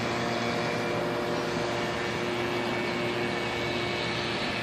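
A steady mechanical hum with a hiss over it and a few held tones. It runs evenly without changing.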